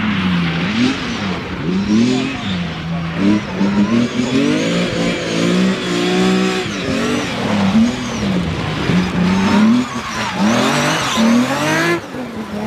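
Rally car engine revving hard, its pitch climbing and falling again and again as the car accelerates, lifts and changes gear. The sound drops off suddenly near the end.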